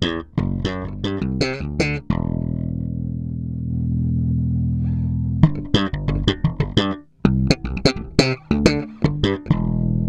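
Yamaha BBNE2 electric bass played through a Markbass Compressore valve compressor pedal, switched on: a quick run of sharply attacked notes, a long low note held from about two seconds in, then another fast run of notes for the last four seconds.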